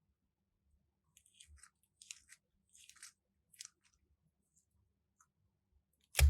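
Crunchy slime crackling and popping in a few short bursts as it is worked by hand, then a single loud thump near the end.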